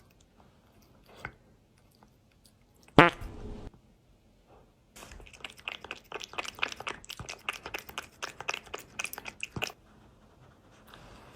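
A cat crunching and chewing dry kibble, a quick irregular run of crunches lasting about five seconds from midway. Before it, about three seconds in, there is one short, loud rasping buzz.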